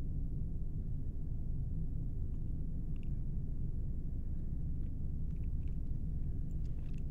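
Steady deep rumble with no change in level, a spacecraft-cabin sound effect.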